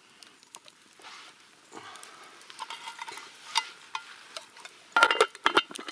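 Stirring and scraping in a metal camp pot of buckwheat and salted meat over a campfire, with scattered small clicks throughout. About five seconds in there is a burst of louder clinks and knocks.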